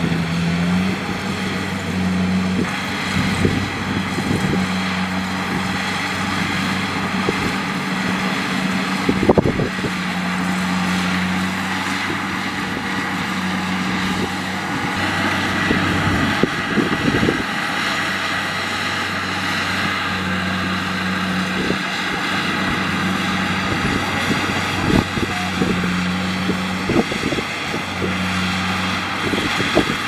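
Kubota DC-70 Plus rice combine harvester working in the crop. Its diesel engine hums steadily under load over a broad mechanical rush from the cutting and threshing gear, with occasional sharp knocks.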